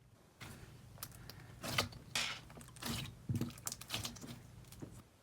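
Thick slushy-avalanche slime being squished and worked in the hands for ASMR, giving irregular sticky clicks and pops that stop just before the end.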